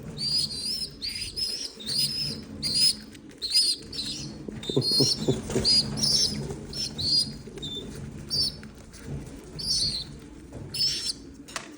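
Racing pigeons chirping and squeaking in quick, repeated high calls as they are fed from the hand, with low cooing underneath and a few wing flaps about halfway through.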